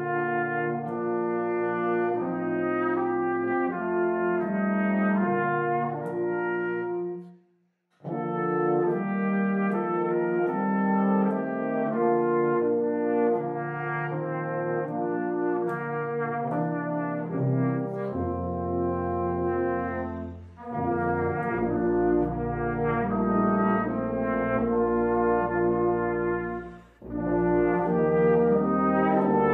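Brass band playing a hymn in held chords, with cornet, tenor horns and euphonium. The band stops together for a moment about a quarter of the way in, then resumes; deeper bass notes join about two-thirds of the way through, and there are brief breaks between later phrases.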